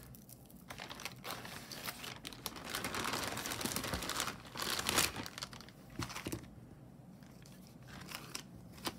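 Packaging crinkling and rustling as it is handled, thick with small crackles. It is loudest around the middle and thins to lighter rustles near the end.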